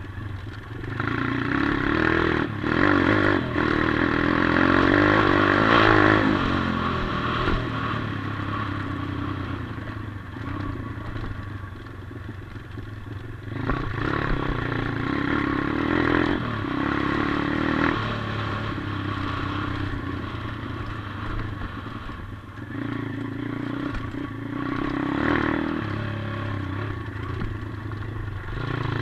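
A 140cc single-cylinder four-stroke pit bike engine, heard close up from a camera on the bike, revving up hard and dropping back again and again in several long surges as the bike accelerates and slows around a dirt track.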